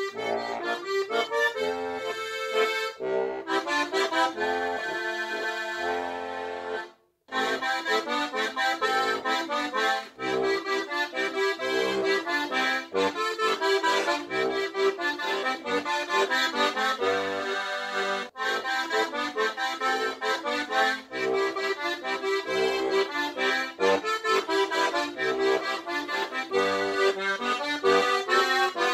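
Beltuna Steirische Harmonika, a diatonic button accordion tuned G-C-F-B, playing a waltz tune over bass and chord accompaniment. A long held chord sounds about four to seven seconds in, then the playing breaks off for a moment and goes on.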